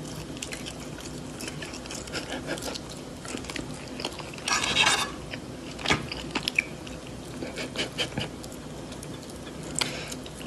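A cat biting and chewing food taken from a fork, with small clicks throughout. A short scrape about halfway through, and a sharp click a second later, fit the metal fork against the plate.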